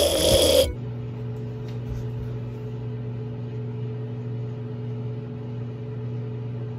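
Microwave oven running: a steady electrical hum. It comes in suddenly about a second in, when louder music and voice cut off.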